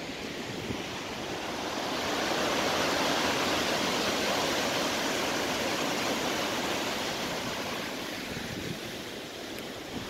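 Wind rushing through the leaves of a beech forest canopy. It swells over a couple of seconds, holds, and slowly eases off.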